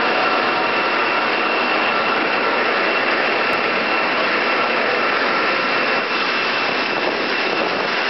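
Boeing 737's jet engines on landing approach: a steady rushing noise with a thin high whine held through it.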